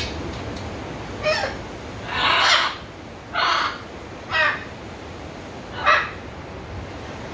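Macaw squawking: five loud calls, the second the longest, over the steady hiss of rain.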